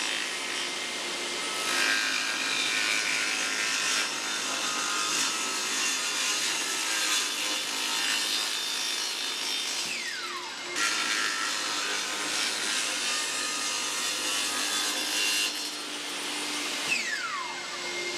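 Table saw ripping narrow strips from red oak flooring: the blade cuts through the wood in two long passes. Each pass ends with a falling whine, one about ten seconds in and one near the end.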